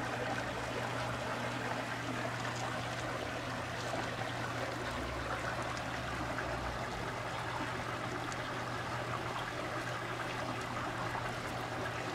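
Steady trickle of running water from a backyard pond, with a low steady hum beneath it.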